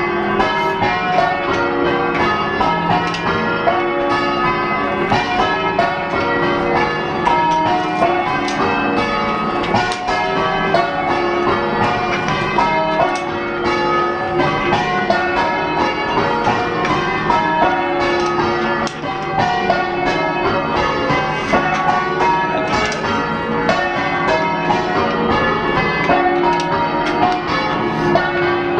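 Change ringing on a heavy ring of six church bells cast in the 1600s. The bells strike one after another in a steady, unbroken stream, with a clonky, old-fashioned tone and a decent boom.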